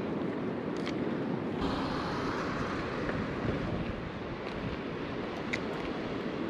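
Wind buffeting the microphone over a steady rushing background, with a stronger gust setting in about a second and a half in.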